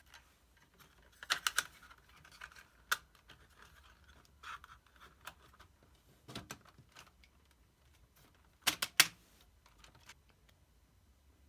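Scattered sharp clicks and light taps of hard parts being handled, in small clusters, with the loudest pair of clicks about three-quarters of the way in.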